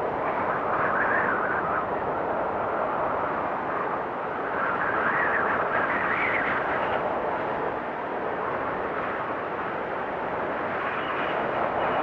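Wind blowing hard in a snowstorm, a steady rushing with gusts swelling about a second in and again around five to seven seconds in.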